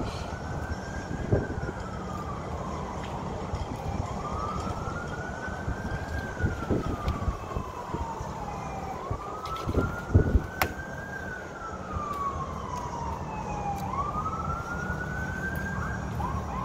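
Emergency vehicle siren wailing: each cycle rises quickly, then falls slowly over about four seconds, four times over. A steady low rumble runs underneath, with a few short knocks, the loudest about ten seconds in.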